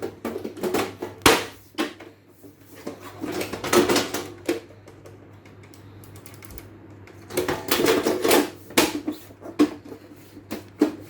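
Side panel of an HP Compaq DC7900 tower case clattering and clicking against the chassis as it is forced back onto its rails. The clatter comes in bursts of rapid knocks, with a quieter pause in the middle.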